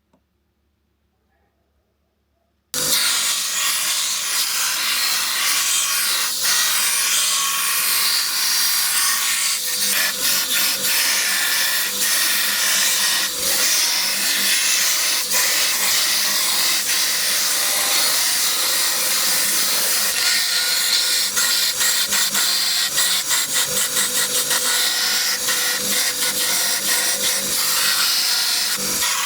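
Steel knife blade being ground or sanded: a loud, steady abrasive rasp that starts suddenly about three seconds in.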